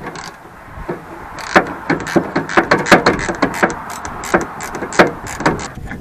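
A quick, irregular run of sharp clicks and taps from hand work on a truck tailgate's backup camera mount, starting about a second and a half in.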